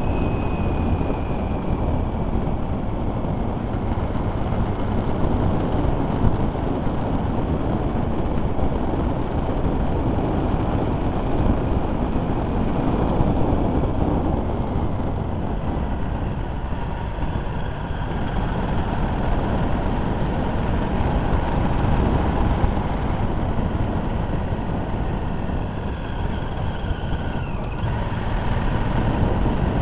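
Motorcycle riding along at road speed, heard from the bike itself: a steady dense rush of engine and wind noise. A faint whine slides down in pitch near the start and again near the end as the revs change.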